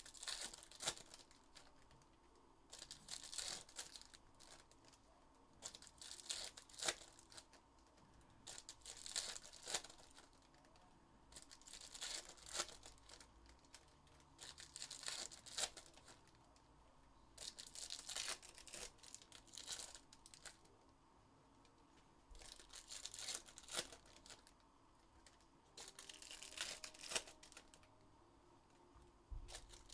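Foil trading-card packs being torn open one after another, the wrappers crinkling in short bursts about every three seconds.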